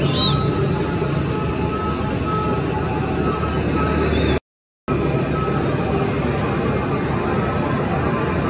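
Steady rushing background noise with a brief high warbling squeal about a second in; the sound cuts out completely for half a second near the middle.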